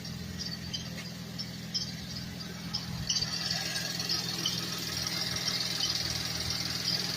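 A 2013 Buick Enclave's 3.6-litre V6 idling steadily. Over it a thin high squeal or hiss comes in short chirps at first and becomes continuous about three seconds in.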